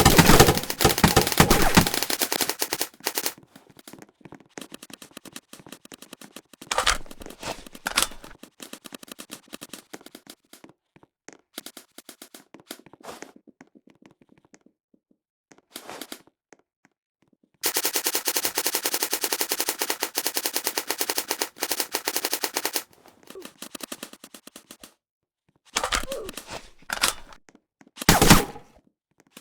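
Rapid automatic gunfire in repeated bursts. There are short bursts and scattered shots at the start and through the middle, then one long unbroken burst of about five seconds a little past the middle, and more short bursts near the end.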